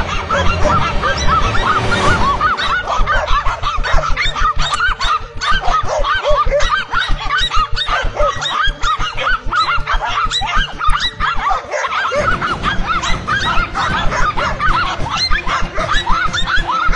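Animal fight noise: a dense, unbroken run of short, high squealing cries, many overlapping, from the dogs and the small animal they are attacking.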